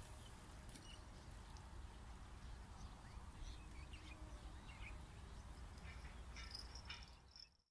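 Faint outdoor ambience at a pond: a steady low rumble, likely wind on the microphone, with faint scattered bird chirps. The sound cuts off to silence just before the end.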